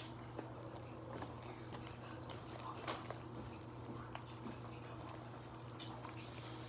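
Faint sticky clicks and squelches of slime being kneaded and pulled between the hands, over a steady low hum.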